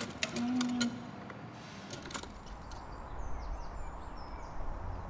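Carved wooden monkey automaton working: a mechanism clicking with a short whirring hum that repeats about once a second. It stops about two seconds in, and the rest is an outdoor background with a low rumble and small birds chirping faintly.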